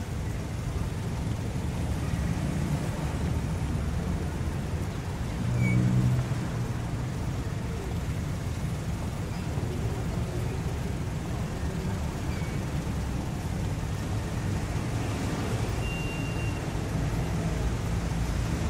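Low, steady rumble of distant city traffic, swelling briefly about six seconds in.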